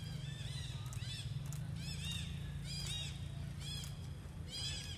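Baby long-tailed macaque screaming in a string of short, arching squeals, some coming several a second, as an adult macaque grabs and pulls it. A steady low hum runs underneath.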